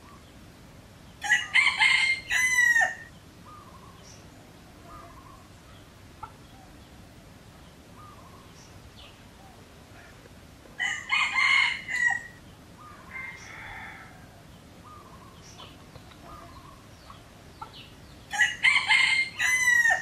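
Red junglefowl roosters crowing three times, each crow a short multi-part call of about a second and a half: one soon after the start, one about halfway through and one near the end. Fainter short calls are heard between the crows.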